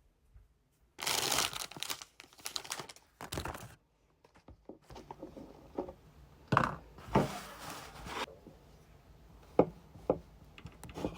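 Plastic food packaging being torn open and crinkled, in two long spells of rustling with a few small knocks between them.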